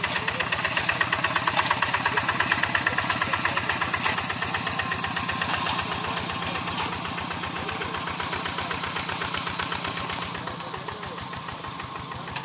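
Single-cylinder diesel engine of a two-wheel hand tractor chugging steadily while pulling a moldboard plow, growing fainter in the last few seconds.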